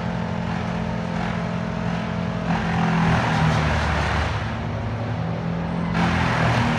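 An engine running steadily, with louder spells of rushing noise starting about two and a half seconds in and again about six seconds in.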